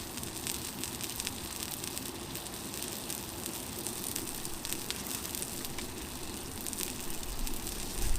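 Wood fire crackling in a Winnerwell titanium wood-burning stove: irregular small sharp pops over a steady hiss.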